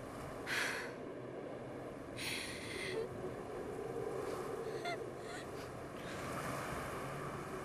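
A person's sharp, breathy gasps, twice: one brief gasp about half a second in and a longer one just after two seconds, then faint small breath sounds.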